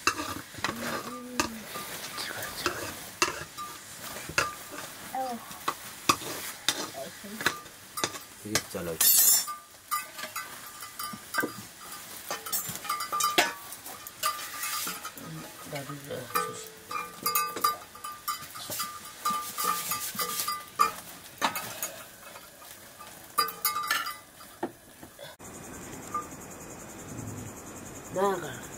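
A metal ladle stirring and scraping dry grain being roasted in a metal pot over a wood fire, with many short knocks and scrapes against the pot and a light sizzle. Near the end this gives way to crickets chirping steadily.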